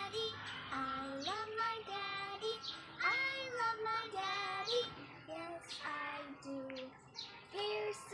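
A young boy singing a children's song in short sung phrases.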